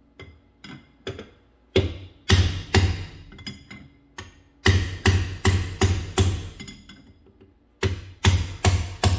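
Hammer striking a steel punch to drive the pinion bearing's outer race and seal out of a Chevy Astro van's rear differential housing: sharp, ringing metal knocks. A few light taps come first, then quick strikes about every half second in two runs with a short pause between them.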